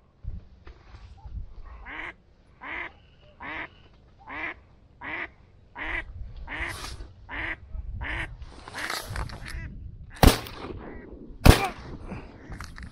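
A duck quacking in a steady, evenly spaced series of about ten calls, then two shots from a double-barrelled shotgun a little over a second apart, the loudest sounds.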